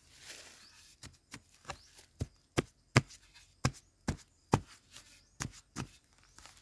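A hand digging tool striking into damp clay soil in a run of sharp chopping blows, about two a second, while digging out a wild yam tuber; a brief scrape of soil being scooped by hand comes first.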